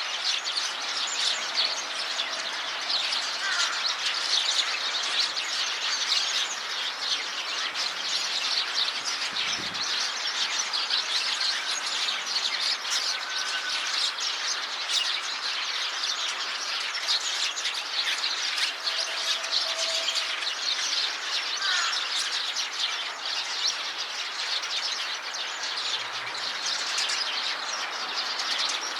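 A flock of Eurasian tree sparrows chirping together: a dense, unbroken chatter of many overlapping short chirps.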